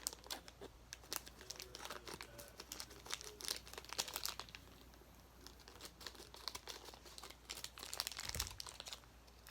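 Plastic packaging crinkling and crackling as it is handled and opened, in quick irregular bursts, thinning out for a couple of seconds midway before picking up again.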